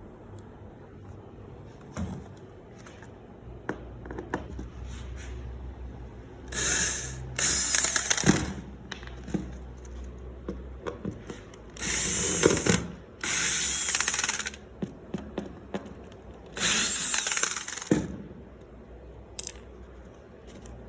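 CNC router cutting aluminium composite panel with a solid carbide bit in five short bursts of about a second each. A low hum and scattered clicks run between the cuts.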